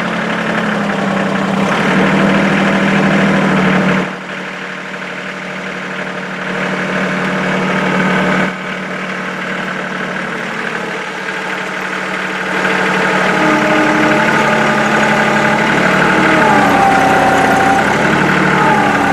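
Kubota compact tractor's diesel engine running as the tractor drives with its loader bucket down. The engine note drops about four seconds in and again around eight seconds, then rises again past halfway. Thin squeaks join in during the last few seconds.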